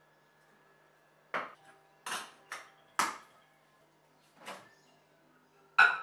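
About six separate knocks and clinks of kitchenware being handled: a tin can, its metal lid and a ceramic bowl. The loudest comes near the end, as the bowl goes into the microwave.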